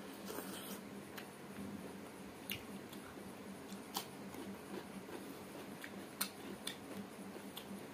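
Close-up mouth sounds of a person chewing meat and rice eaten by hand: wet smacks and sharp clicks at irregular intervals, about one a second, over a faint steady low hum.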